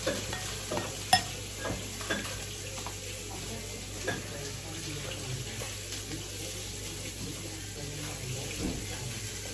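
A few light clicks and taps from eating at a table, over a steady low hiss.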